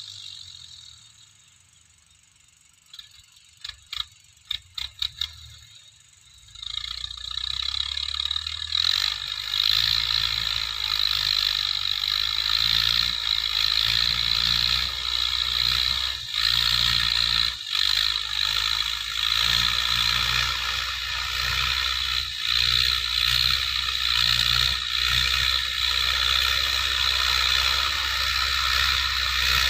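A few sharp clicks over near quiet, then from about six seconds in a Massey Ferguson 185 tractor's four-cylinder diesel engine runs steadily while pulling a tiller, with a steady high hiss over it.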